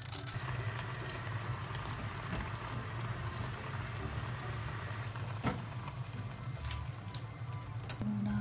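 Instant ramen simmering in a small pot, a steady bubbling crackle, with a few light clicks from a pan or utensil.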